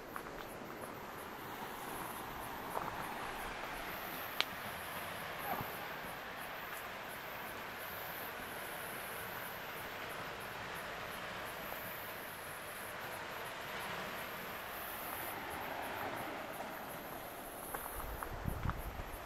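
Insects chirping high and fast in repeated pulsing bursts over a steady hiss of outdoor background noise. There are a few faint clicks and some low thumps near the end.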